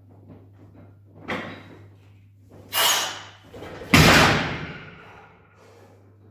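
A loaded barbell's steel plates knock and thud on the gym floor as a lifter sets up for a heavy deadlift. There is a light knock about a second in and a louder one near three seconds. The loudest is a heavy thud about four seconds in that rings off over about a second.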